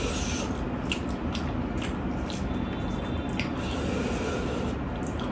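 Eating sounds from a meal of rice and fried mutton ribs eaten by hand: wet, squishy chewing and mixing, with a few sharp little clicks scattered through.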